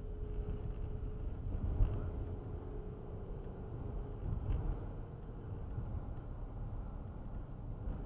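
Low, steady road and engine rumble heard inside a car's cabin as it pulls away and speeds up, with a light bump about two seconds in.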